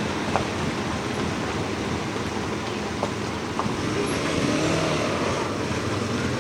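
Engines of slow-moving vehicles, a pickup truck and a side-by-side utility vehicle, running steadily as they roll past, with a few faint clicks.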